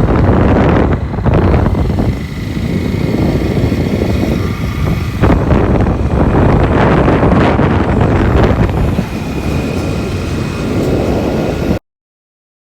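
Loud rumbling wind buffeting the microphone over a running vehicle; the sound cuts off abruptly near the end.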